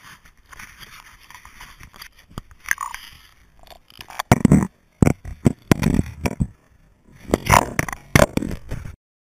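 Faint hiss of a shallow creek, then from about four seconds in the muffled, irregular thumps and knocks of a camera held under the water, with water moving against its housing. The sound cuts off abruptly near the end.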